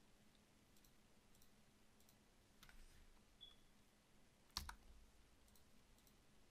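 Near silence with a few faint computer mouse clicks, the loudest about two-thirds of the way through with a dull thump.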